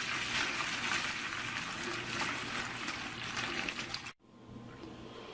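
Beef bone broth pouring from a slow-cooker crock through a fine mesh strainer into a metal roasting pan, a steady splashing stream. It cuts off suddenly about four seconds in.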